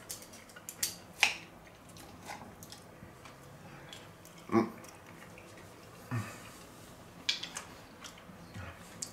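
Eating: scattered clinks of a fork on a plate, with quiet chewing between them.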